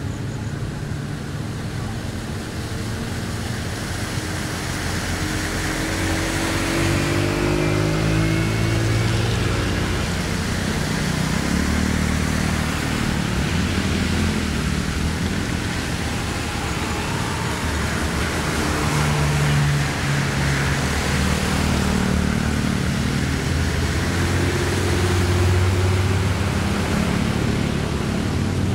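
Cars and motorbikes driving past through shallow floodwater across the road: engines running, their pitch rising and falling as they pass, with the hiss and splash of tyres in the water.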